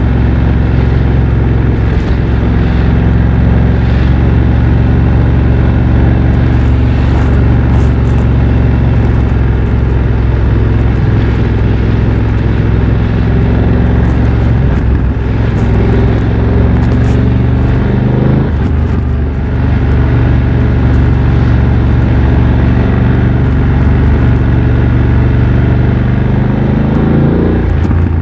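BMW F900 XR's parallel-twin engine, running loud through a MIVV X-M1 aftermarket exhaust while riding. The revs climb slowly and fall sharply about two thirds through, then climb again and fall right at the end: two upshifts, with a steady rush of wind and road noise underneath.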